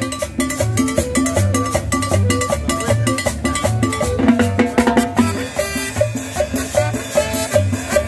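Live street band playing upbeat Latin dance music, with upright bass, saxophone, trumpet and drums keeping a steady beat.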